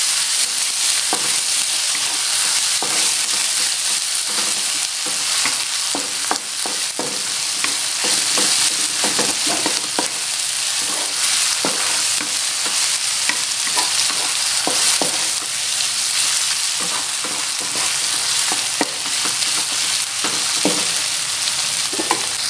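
Pounded spice paste of shallot, garlic, ginger, turmeric and galangal, with lemongrass stalks, sizzling in hot oil in a wok as it is sautéed until fragrant. A wooden spatula scrapes and knocks irregularly against the pan as it stirs.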